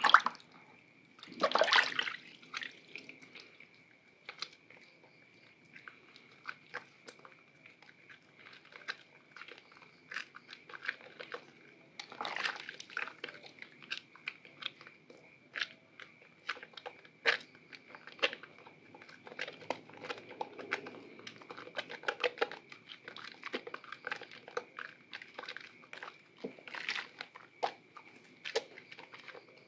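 A wet bar of My Baby soap being dipped, rubbed and squeezed between hands in a basin of water: two splashes near the start, then a long run of small, sharp wet clicks and crackles as it lathers. A faint steady high tone runs underneath.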